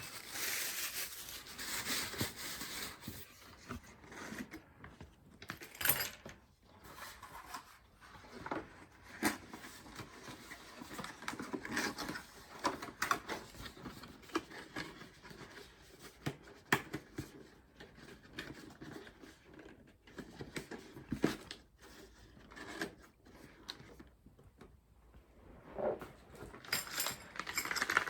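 Close hand handling of small PC-building parts and packaging: irregular light clicks, scrapes and rustling, as a CPU contact frame is fitted to the motherboard socket.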